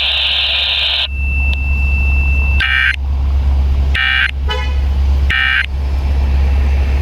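Emergency Alert System end-of-message data bursts on a radio broadcast: three short, harsh digital squawks about 1.3 s apart. They follow a steady high tone of about a second and a half, over a low steady hum.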